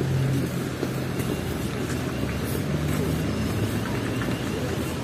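City street traffic: a motor vehicle's engine running with a low steady hum over a wash of street noise. The hum shifts a little lower about three seconds in.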